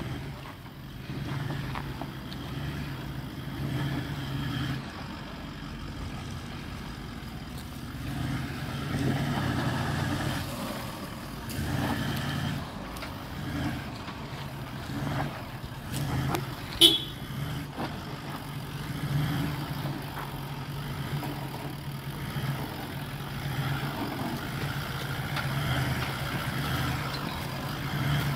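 Four-wheel-drive engine running at low revs while crawling over deep ruts, the revs swelling and easing several times. One sharp clank about seventeen seconds in is the loudest sound.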